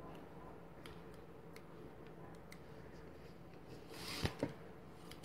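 Faint rustling and light clicks of hands handling and knotting thick 6 mm cotton macramé cord over a low steady hum, with two quick knocks a little after four seconds in.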